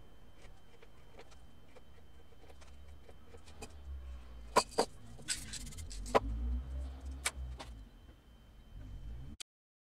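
Handling noise from a painted board being turned on a work table: a few sharp light knocks and rubbing over a low rumble in the middle, with a faint steady high whine underneath. The sound cuts off abruptly near the end.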